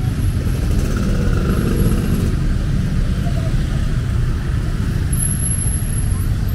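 Steady low rumble of city street traffic, with cars and motorbikes running by.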